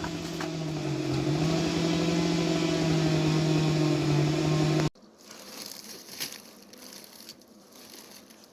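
Two-stroke chainsaw running at high revs, its pitch dipping briefly about a second in as it loads in the cut, then stopping abruptly about five seconds in. Faint crackling and knocking follow.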